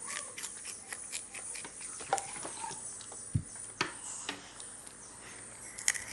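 Eating sounds: irregular short clicks of chewing, several a second, with a few sharper ones.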